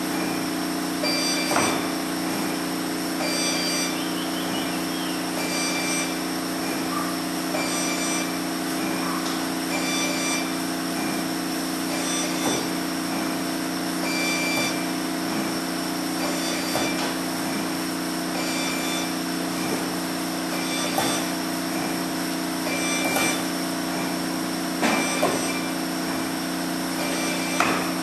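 Dual roll-spot seam welder running with a steady hum, with a faint high tone that comes and goes every second or two and a few sharp clicks. Near the end a short crackle as the copper welding wheels begin welding the bar and throw sparks.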